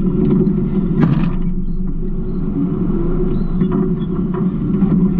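Garbage truck engine running with a steady low rumble, with a brief clatter about a second in.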